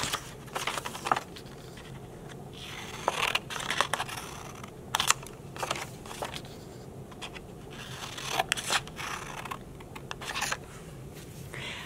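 Scissors snipping slits into a square of cardstock, in short bouts of crisp cuts with pauses between.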